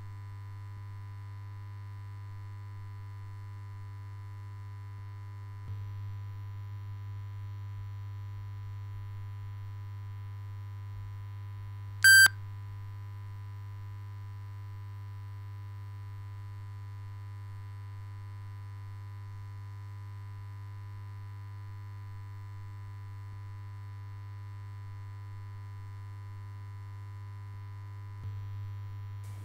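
Steady low electrical hum with faint steady tones above it, broken once about twelve seconds in by a short, loud electronic beep.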